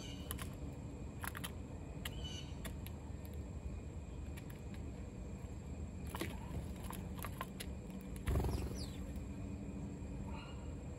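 House sparrows feeding from a foil pie pan: scattered clicks and taps, a few short chirps including one quick falling call, and a single low thump about eight seconds in, over a steady low background rumble.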